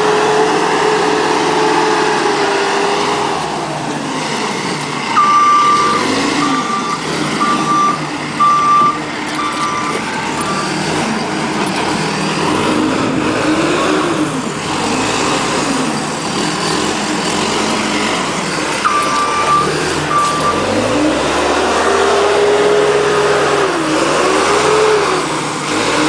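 Construction machine's reversing alarm beeping in a run of about six beeps, then twice more later, over a heavy machine engine revving up and down as it works.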